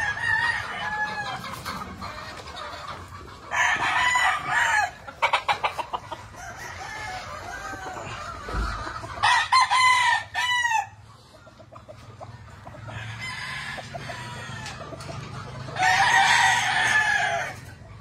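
Gamefowl roosters crowing one after another: three loud crows close by, at about four, ten and seventeen seconds in, over fainter crows from other roosters across the farm. A short run of rapid taps comes just after the first loud crow.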